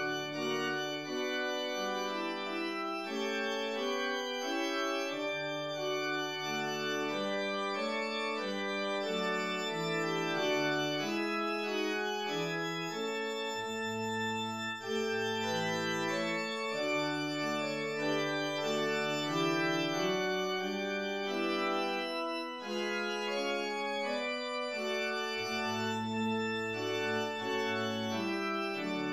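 Organ music: slow, held chords that change every second or two over a moving bass line.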